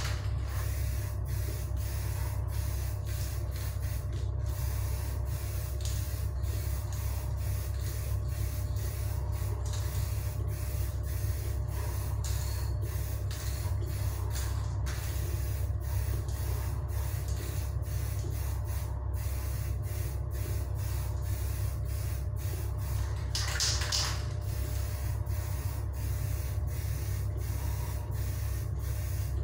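Aerosol spray-paint can hissing in passes with brief breaks between them as a second opaque coat goes on, over a steady low hum.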